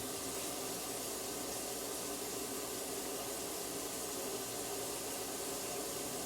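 Water running steadily from the kitchen faucet into the sink and down the garbage disposal drain, as a test for leaks after refitting the disposal's rubber gasket.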